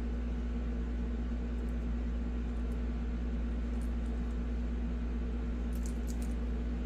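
Steady background hum, a constant low drone with a steady mid tone over it, with a few faint light clicks near the end.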